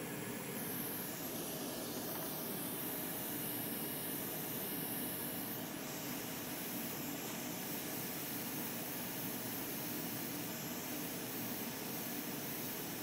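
Soldering fume extractor fan running, a steady whooshing hiss of moving air.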